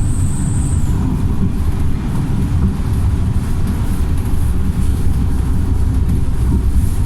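Wright StreetLite single-deck bus's diesel engine running in a steady low drone. A thin, high whistle fades out about a second in.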